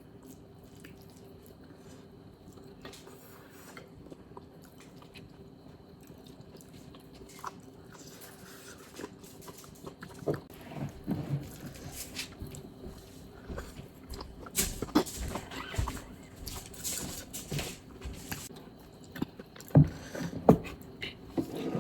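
A person eating: chewing and biting, with scattered short clicks and crunches that grow busier after about ten seconds, over a faint steady hum.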